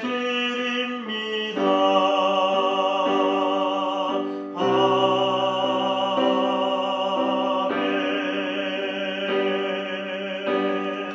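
A Korean hymn sung in a classical, operatic style with accompaniment: the closing words are drawn out in long, wavering held notes.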